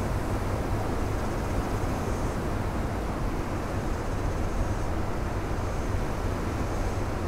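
Ocean surf breaking on a rocky shore: a steady, low rumble of waves with no single break standing out.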